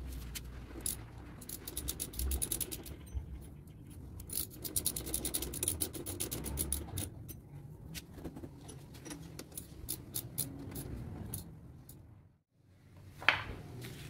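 Metal parts being worked by hand while an aftermarket slip-on muffler is fitted to a motorcycle's exhaust link pipe: scraping and runs of rapid sharp clicks. A short near-silent gap comes near the end, followed by a single loud knock.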